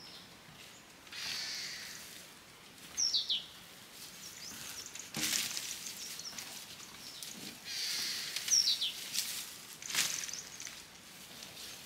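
Outdoor rural ambience: a bird gives a short falling chirp twice, about three seconds in and again past eight seconds, with a couple of sharp knocks and a soft hiss in between.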